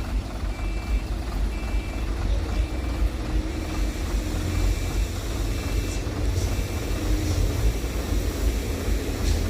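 Heavy truck's diesel engine running with a deep steady rumble, while a reversing alarm beeps about once a second: a truck backing up.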